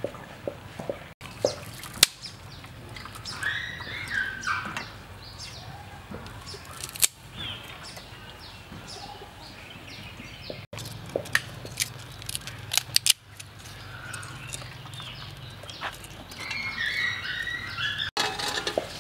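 Birds chirping, twice in short runs, over scattered clicks and knocks of hands and metal utensils at work.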